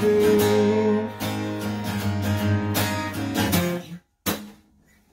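Acoustic guitar strumming chords, which stop a little under four seconds in, followed by a single sharp knock.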